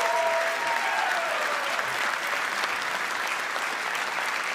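Room of people applauding steadily, with a few voices cheering near the start.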